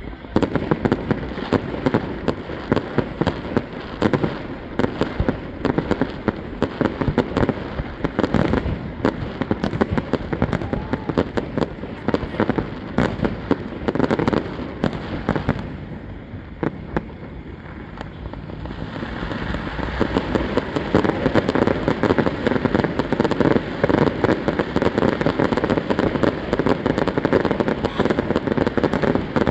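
Fireworks display: a dense run of bangs and crackling. It eases off about halfway through, then builds back up just as thick.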